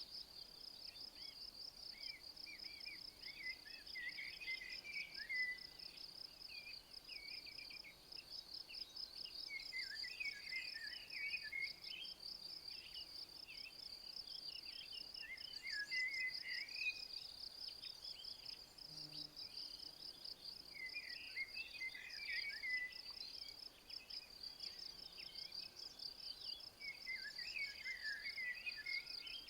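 A cricket chirping in a steady, fast, high-pitched pulsing trill. A songbird repeats a short warbled song phrase about every six seconds.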